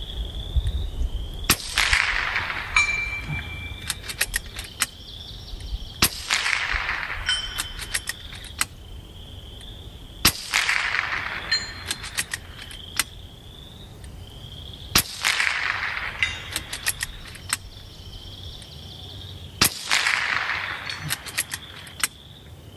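FX Impact M3 PCP air rifle firing Patriot Javelin slugs pushed to around the speed of sound: five sharp shots about four and a half seconds apart, each with a short fading echo. About a second after each shot comes a short cluster of light metallic ticks, from the lever being cycled and from slugs striking the steel swinging targets downrange. A faint high chirping runs in the background.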